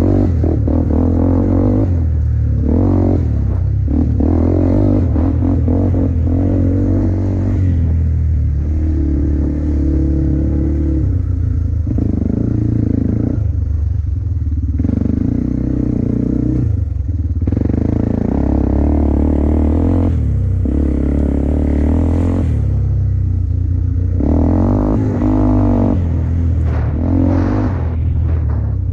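Off-road vehicle engine running under changing throttle, revving up and easing off every few seconds, with scattered knocks as it works over rough ground.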